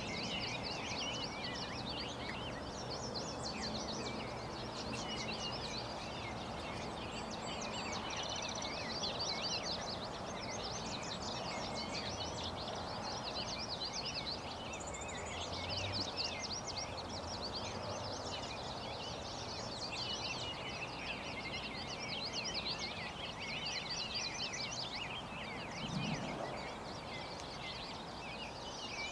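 Many songbirds singing at once, a constant mix of quick chirps and trills, over a steady outdoor background hiss, with a brief low sound near the end.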